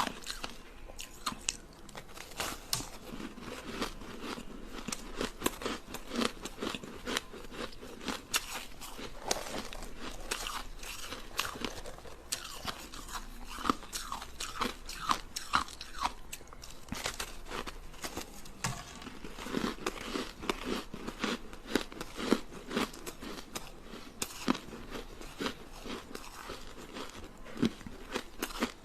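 Close-up crunching of ice being bitten and chewed: a dense, irregular run of sharp cracks and crunches with no letup.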